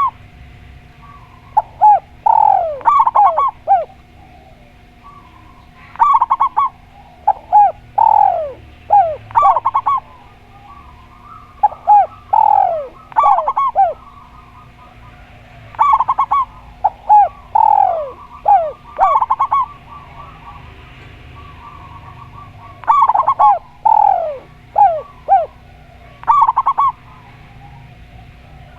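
Spotted dove and zebra dove cooing: loud phrases of several quick falling notes come every few seconds, with softer warbling coos between them. A faint steady hum runs underneath.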